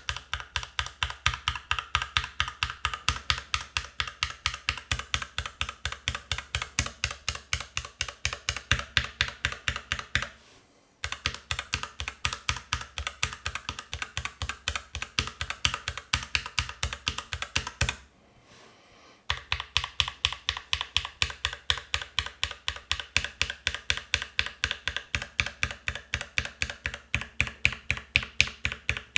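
Fast, even typing on a mechanical keyboard with linear switches, a dense run of keystrokes at about four or five a second, stopping briefly twice.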